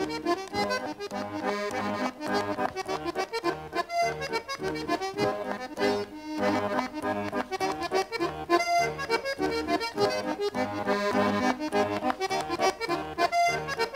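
Lively traditional dance tune played on accordion, with a steady alternating bass beat.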